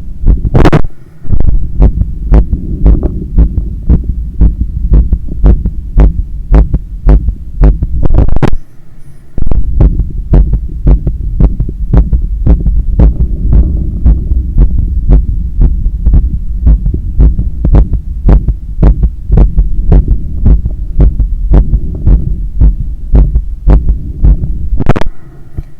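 Human heart heard through a stethoscope on the chest just after hard exercise, hammering in a fast, even rhythm of beats. Three times a louder knock cuts in and the beats drop away for about a second.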